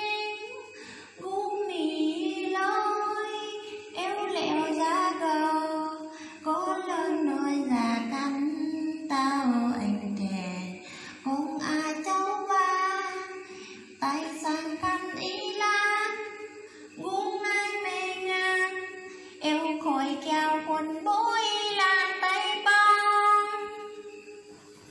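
A woman singing solo and unaccompanied: a slow narrative folk ballad (vè) sung in long held phrases, each a few seconds long, with short breaks for breath between them. One phrase near the middle slides down in pitch.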